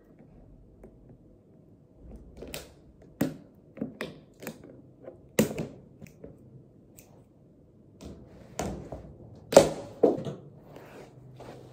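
Scissors snipping at a white plastic basket and the basket clattering, heard as a few irregular sharp clicks and knocks, the loudest about two-thirds of the way through.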